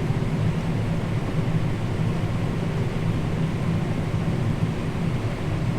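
Combine harvester running steadily while harvesting corn: a constant low drone.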